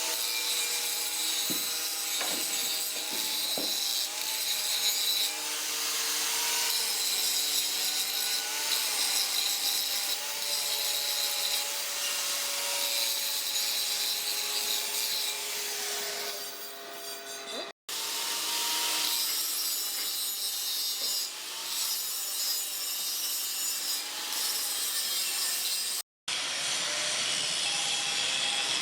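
Continuous harsh scraping and rasping, like a tool working a metal surface, with a faint wavering tone running beneath it. It breaks off abruptly twice and starts again straight away.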